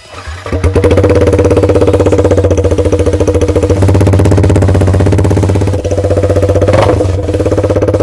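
Yamaha MT-15's 155 cc single-cylinder engine running very loud through an open header pipe with no silencer fitted, a rapid, even exhaust pulse. The engine note rises briefly about seven seconds in.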